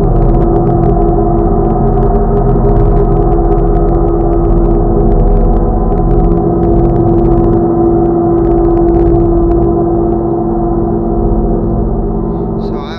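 A 60-inch gong played loudly, sustaining a dense wash of overlapping ringing tones with a strong hum in the middle. It cuts off abruptly near the end.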